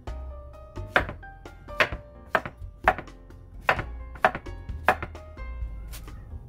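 Kitchen knife slicing a Korean zucchini into rounds on a wooden cutting board: about seven sharp knocks of the blade meeting the board, roughly half a second to a second apart, stopping about five seconds in.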